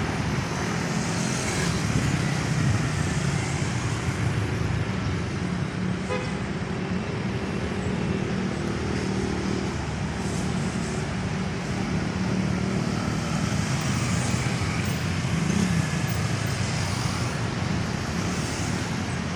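Steady road traffic noise, with vehicles passing and swelling now and then.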